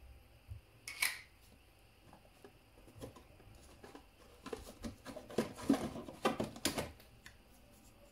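Hands handling plastic Tassimo T-disc pods and their cardboard box: a sharp click about a second in, then a run of clicks and rustling in the second half.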